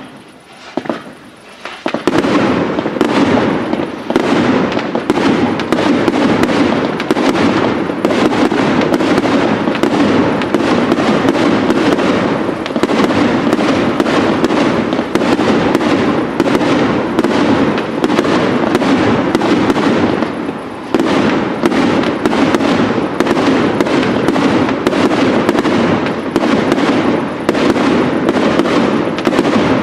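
Fireworks display going off in rapid, dense popping and crackling from about two seconds in, with a brief lull about two-thirds of the way through.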